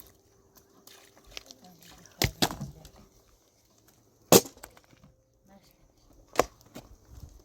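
Three sharp knocks about two seconds apart, the middle one the loudest, over faint background sound.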